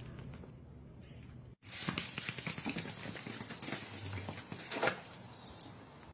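Quiet room tone, then, about a second and a half in, a steady hiss of water near a pond begins suddenly, with scattered clicks and scrapes in it.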